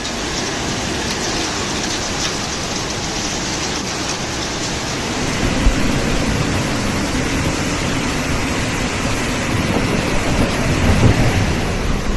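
Steady rushing noise of a heavy storm, rain and water, growing a little louder about halfway through, with low thumps about six and eleven seconds in.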